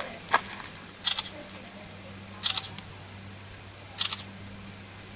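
Handling noise from a handheld camera filming close up: four short clicky rustles, spread across the first four seconds, over the recorder's steady low hum and a faint high drone of insects.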